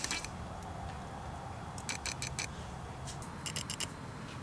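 Light clicks and taps of a small screw and end cap being fitted by hand onto a PENN Fierce II spinning reel's body, coming in a few short clusters, over a steady low hum.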